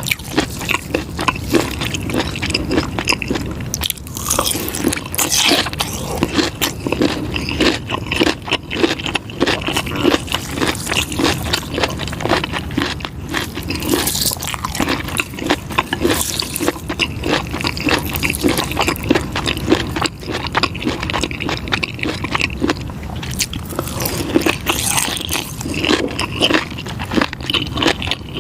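Close-miked eating of pickled fish skin: a continuous run of crunching and crackling bites and chews.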